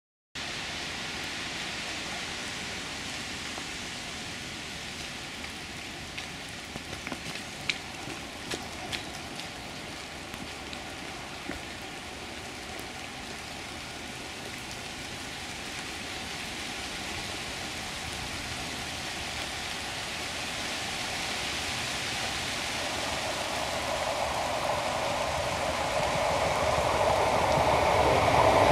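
A steady hiss with a few sharp clicks, then a train approaching, its sound building steadily over the last several seconds.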